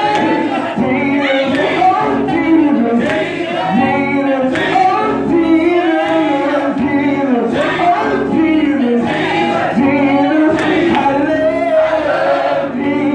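A young man singing a gospel song solo into a hand-held microphone.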